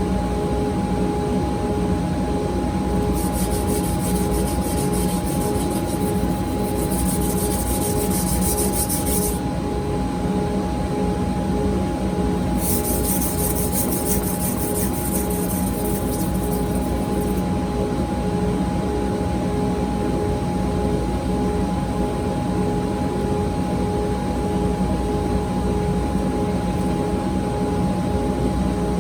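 Electric grinder motor running steadily, with a pulsing hum from its rotation. Twice, for several seconds each, a harsh high hiss of steel being ground on the abrasive as the knife blade is pressed to it, during regrinding and thinning of the blade.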